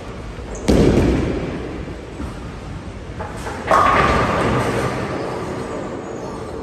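Bowling alley: a heavy thud about a second in, then a louder crash of bowling pins a few seconds later, ringing and fading slowly.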